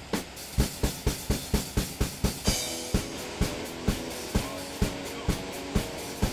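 Background music with a drum kit: a fast run of drum hits, then a cymbal crash about halfway through. After the crash comes a steady beat of about two hits a second under held chords.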